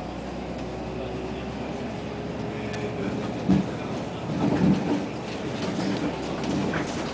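Cabin noise of a Scania N94UA articulated city bus under way: steady engine and rolling rumble, with a faint whine slowly rising in pitch over the first few seconds as it gathers speed. There is a sharp knock about three and a half seconds in, then a stretch of louder rattling.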